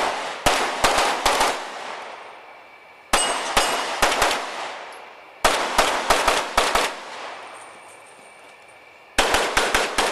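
Pistol fire in four quick strings of about six shots each, with a pause of a second or two between strings while the shooter moves to the next position; each crack rings out briefly.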